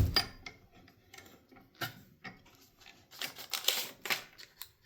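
A small bench vise being handled: a heavy knock right at the start as it is set down, then scattered metallic clicks and rattles, busiest about three to four seconds in.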